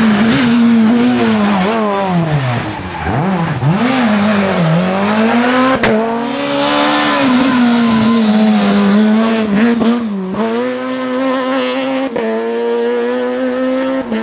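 Rally cars at stage speed, among them a Skoda Fabia S2000, engines revving hard. The pitch drops and climbs again several times as the drivers lift, brake and change gear. The sound jumps abruptly a few times as one pass gives way to the next.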